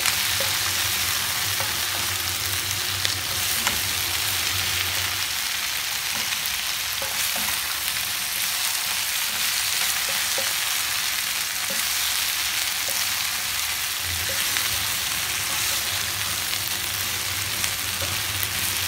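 Mixed vegetables sizzling in oil in a wok while a wooden spatula stirs them. A steady frying hiss runs throughout, with occasional light taps of the spatula against the pan.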